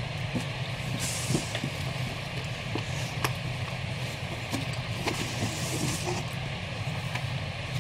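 Comic books being handled and lifted out of a cardboard box: paper sliding and rustling, with a few light knocks, over a steady low hum.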